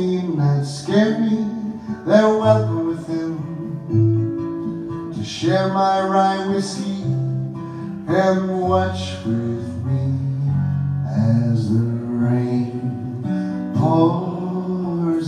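Live acoustic guitar music: strummed chords that change every second or two, with singing at times.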